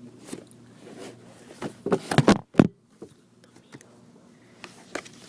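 The box and packaging of an action figure being handled and worked open by hand: scattered rustles and clicks, with a cluster of loud scraping, rustling noises about two seconds in.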